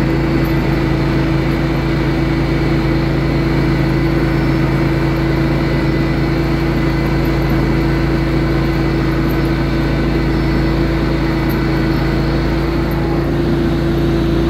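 John Deere LX188 lawn tractor's V-twin engine running at a steady speed and load as the tractor drives along pushing a front plow blade.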